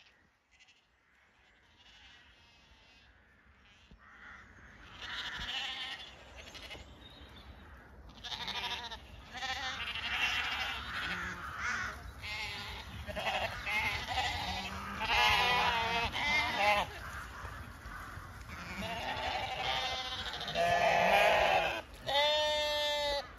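A flock of Zwartbles sheep and lambs bleating, many overlapping calls. The bleats begin about four seconds in and grow louder and more frequent, ending with one loud, wavering bleat.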